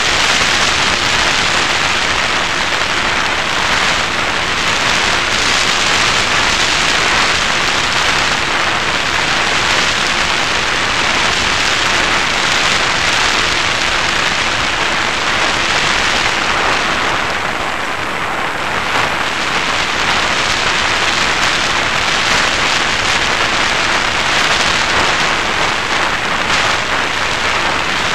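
Steady rush of airstream noise on the onboard camera's microphone of an FPV Raptor model plane in flight, with a faint steady hum from its electric motor and propeller underneath. The rush eases briefly about two-thirds of the way through.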